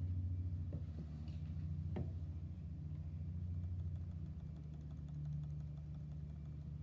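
Steady low hum of a machine or room equipment, with a single sharp click about two seconds in.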